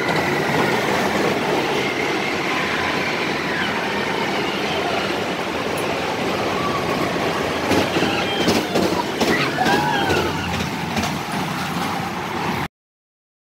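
Amusement-park ride cars running on a steel track: a steady rumble of wheels on rail, with a few high squeals about eight to ten seconds in. The sound cuts off suddenly near the end.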